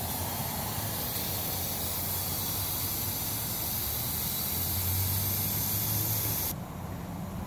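Overheating Ford Explorer engine running, with a loud steady hiss over its low hum. The hiss cuts off suddenly about six and a half seconds in, leaving the engine's low running sound.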